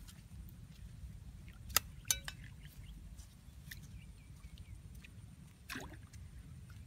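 Hands moving in shallow muddy water: two sharp snaps about two seconds in and a short splash near the end, over a steady low rumble.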